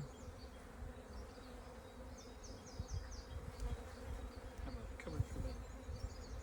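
Honeybees buzzing around an open hive, a steady hum. About two seconds in, a short run of quick high chirps sounds over it.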